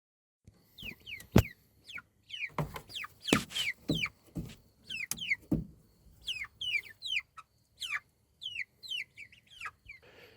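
Young chickens peeping: many short, high calls, each falling in pitch, repeated over and over, mixed with several sharp knocks or lower clucks.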